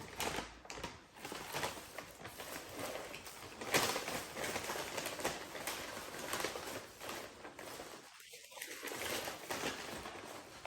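Paper takeout bags and food boxes being handled and opened, a continuous crinkly rustling with many small crackles.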